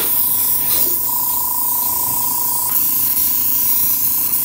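Airbrush spraying orange food colouring onto a tray of leaf decorations: a steady hiss of air and colour, with a steady whine underneath.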